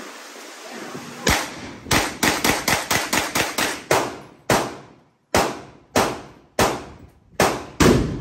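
Semi-automatic gunfire: a fast string of about ten shots, then slower single shots half a second to a second apart, each with a ringing tail.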